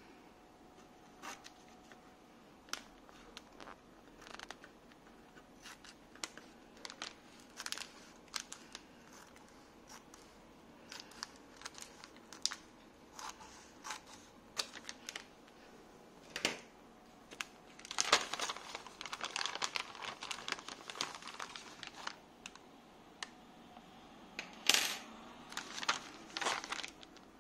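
Scissors snipping open a silvery anti-static plastic bag, with the plastic crinkling and crackling as it is handled in short, scattered bursts. A dense spell of crinkling comes about two-thirds of the way through, and the loudest crackle near the end.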